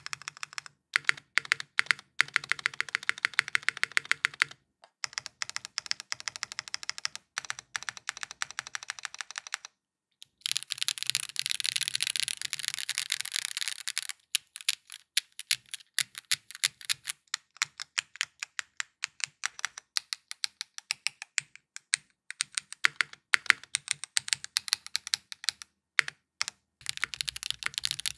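Typing on a Chosfox Fox65 mechanical keyboard built with Catmint 50g switches on an FR4 plate, no foam, and GMK keycaps: rapid keystroke clacks in flurries with brief pauses. About ten seconds in comes a few seconds of very fast, unbroken typing that sounds like rain.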